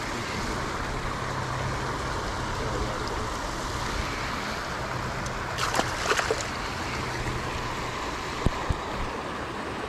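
Steady rushing background noise, with a short splash about six seconds in as a small largemouth bass is dropped back into the water, then two sharp knocks near the end.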